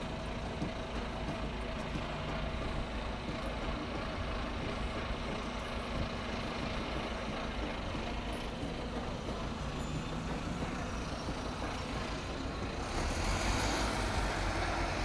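Road traffic on a busy city bridge: the steady low rumble of buses, lorries and cars running past, growing louder about thirteen seconds in.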